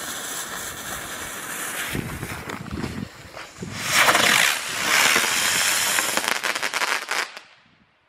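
Weco Vampir firework bird, a winged ground spinner, hissing as it whirls and sprays sparks. It gets louder about four seconds in, then ends in rapid crackling that dies away shortly before the end.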